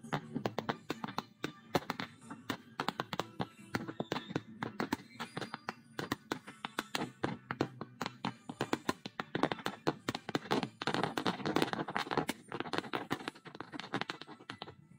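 Starmine fireworks by Shinshu Enka: a rapid barrage of shell launches, bursts and crackling, densest about ten to thirteen seconds in. It stops abruptly right at the end.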